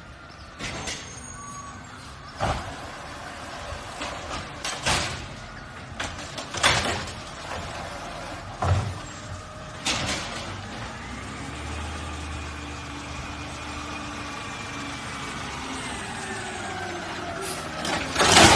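Garbage truck at work: a series of short, sharp noises every second or two, and about midway through a drawn-out engine or hydraulic whine that rises and then falls over a low rumble. The loudest sharp noises come at the very end.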